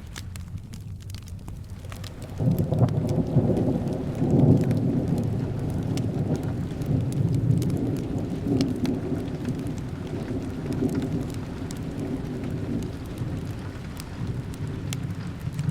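A long roll of thunder over steady rain: the low rumble comes in about two and a half seconds in, is loudest about four seconds in, and slowly dies away. Scattered sharp crackles from a fireplace sound throughout.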